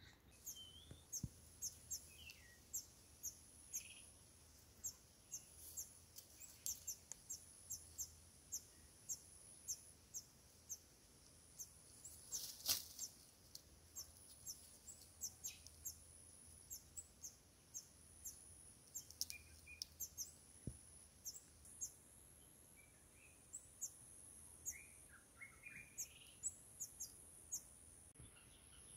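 Birds chirping, faint: many short, very high chirps at an irregular quick pace, with a few lower calls now and then and one sharper click about halfway through.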